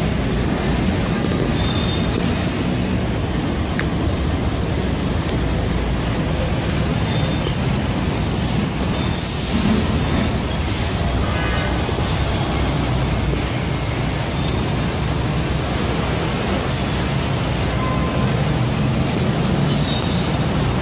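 Steady city traffic noise: a constant wash of passing vehicles with no single event standing out.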